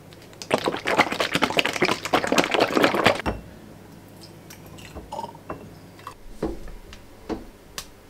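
A bottle of ayran shaken hard for about three seconds, the drink sloshing inside in quick strokes, then poured into a glass tumbler with a few glugs and small knocks.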